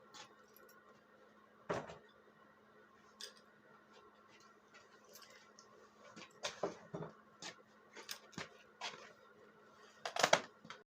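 Scattered light clicks and knocks of tools and small metal parts being handled while a snow blower's carburetor is worked on, the loudest clatter near the end, over a faint steady hum.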